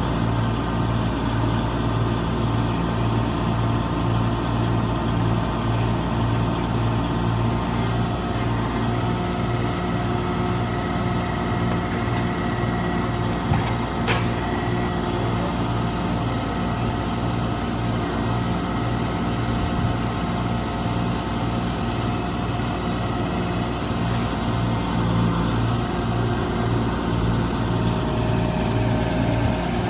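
Engine of log-loading machinery running steadily, with a single sharp knock about halfway through.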